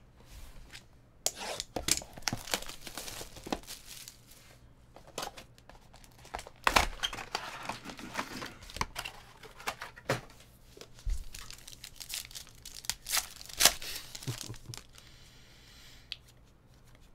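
Trading-card pack wrappers being ripped open and crinkled by hand: irregular sharp rips and crackles in several bursts, the loudest about seven and thirteen seconds in.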